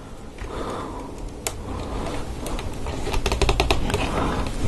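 Plastic LEGO Technic parts clicking and rubbing under the fingers as a flexible tube is worked onto a tight-fitting axle. There is a single sharp click about a second and a half in, and a quick run of small clicks around three seconds in.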